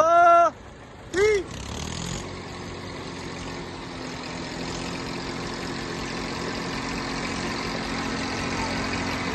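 Diesel tractor engines running steadily under heavy pulling load, a Massey Ferguson 1035 DI straining against an Eicher 241 chained to it in a tug-of-war, growing slightly louder towards the end. Two short, loud whooping calls with a rising-and-falling pitch come in the first second and a half.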